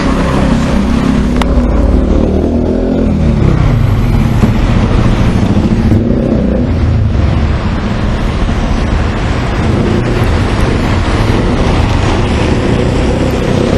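Bus engine heard from inside the moving bus: a loud, steady rumble whose pitch drops about two to four seconds in, then holds.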